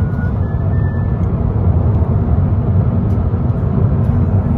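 Steady low rumble of road noise inside a car's cabin while it cruises at highway speed.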